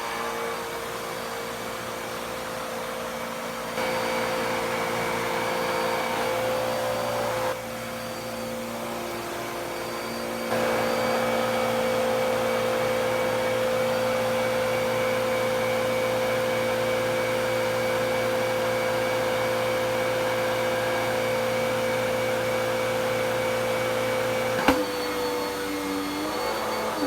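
Dirt Devil PowerMax Pet vacuum cleaner motor running steadily, its loudness stepping up and down a few times. Near the end a sharp click, after which the motor sound drops and its pitch shifts.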